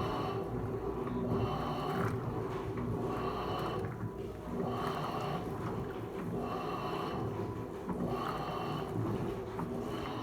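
Electrolux Turbo LTC15 top-loading washing machine in its wash cycle, the agitator churning the clothes and water in a repeating swish about every second and a half over a steady motor hum.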